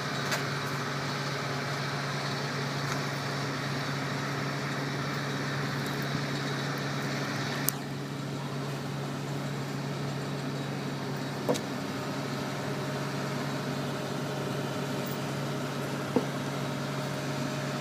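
Crane engine running at a steady drone while it holds and levels a sailboat in its lifting bands, with three short, sharp clicks spread through.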